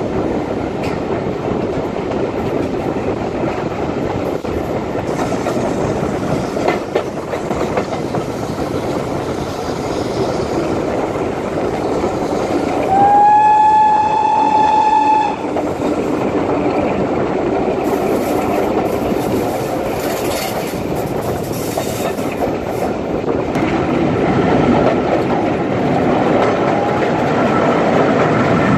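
Steam train of BR Standard Class 4MT tank locomotive 80072 running steadily, with one whistle blast of about two seconds roughly halfway through, its pitch rising slightly as it opens and then holding.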